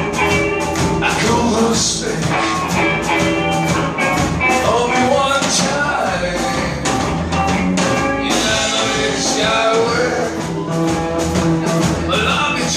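A rock-and-roll song played by a band: a singer over guitar, bass and a steady drum beat.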